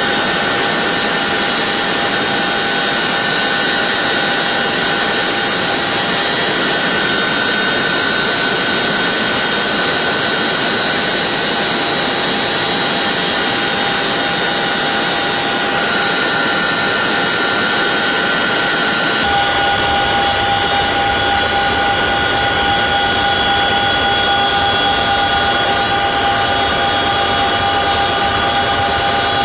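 CH-47 Chinook's twin turboshaft engines and rotor drive running, heard from inside the cabin as a steady loud whine with several high tones over a noisy rush. About two-thirds of the way through the sound changes abruptly, the tones shift and a deeper rumble comes in.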